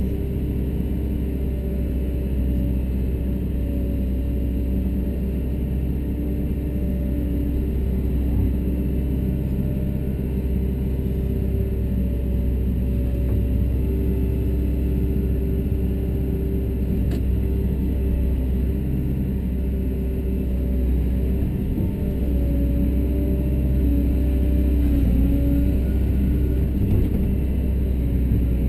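Liebherr R926 Compact excavator running steadily as it works its bucket through soil, heard from inside the cab: a continuous low engine hum with higher tones that shift and break as the arm and bucket move.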